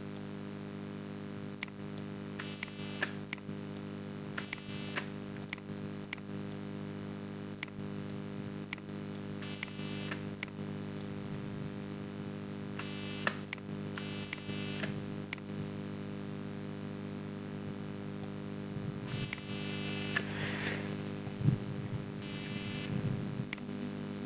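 Steady electrical hum from the recording chain, with single sharp mouse clicks every second or so and a few short bursts of hiss.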